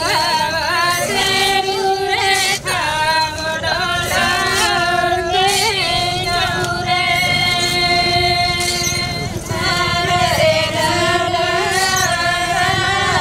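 A group of Korku women singing a folk swing song (dolar geet) together without instruments, in long held notes that slide from pitch to pitch. The line breaks briefly about two and a half seconds in and again about nine and a half seconds in.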